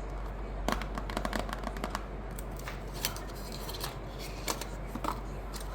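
Packaging being handled and opened: a quick run of sharp crinkles and clicks about a second in, then scattered single crackles.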